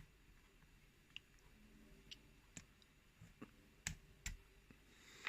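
Pliers working at the circlip on a euro cylinder lock: faint, scattered metal clicks and taps, about eight of them, the two loudest near the end.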